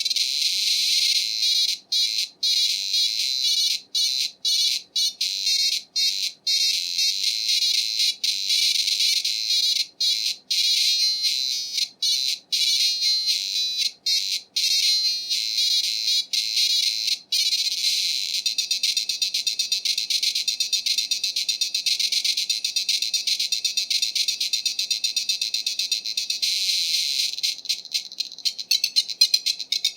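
Demo music played through an IBM PC XT's built-in PC speaker: a buzzy, high-pitched beeping tune, cut by many brief silences in the first half, then more even, turning quieter and choppier near the end.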